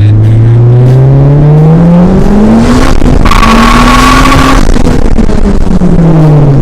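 Car engine revving, its pitch climbing over the first three seconds and falling again near the end, with a high steady squeal and hiss in the middle lasting about a second and a half.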